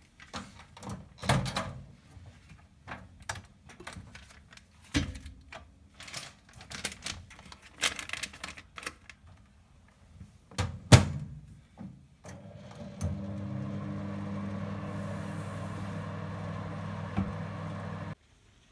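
Handling noises of clicks and knocks, then a steady electric appliance hum that starts about two-thirds of the way in and cuts off suddenly about six seconds later.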